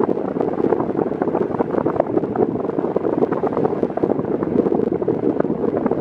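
Airflow from an Arno Xtreme Force Breeze VB40 40 cm fan on its lowest speed buffeting the microphone right at the grille: a steady, loud rushing wind noise with many small crackles.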